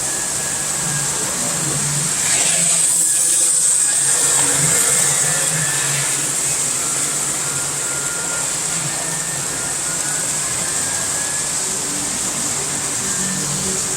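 Model train running on the layout: a steady electric motor hum with hissing track noise, swelling louder for a couple of seconds a few seconds in.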